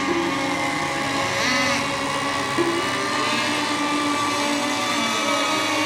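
Several radio-controlled model boat engines running at once, a steady mix of buzzing tones at different pitches that briefly rise and fall as the boats throttle up and down while circling before the start.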